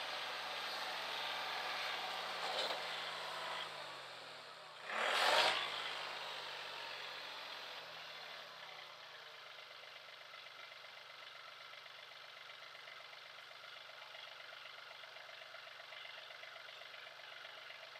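Yanmar compact tractor's diesel engine running as it drives past dragging a log, its pitch bending as it passes, with a brief loud rush of noise about five seconds in. It then settles to a quieter steady idle.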